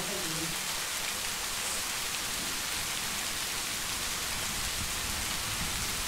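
Steady rain falling, an even hiss without distinct drops or breaks.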